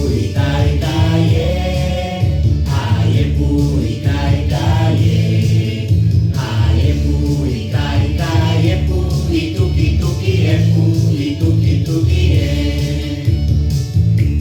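A recorded song playing: several voices singing together over a steady instrumental backing with a strong bass.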